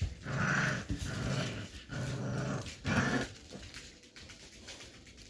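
Puppy play-growling in about four short growls over the first three seconds, then quieter.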